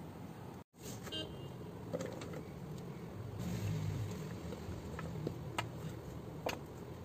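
A few light taps as raw banana slices are set down one by one on a steel plate, over a steady low background rumble that swells briefly about halfway through.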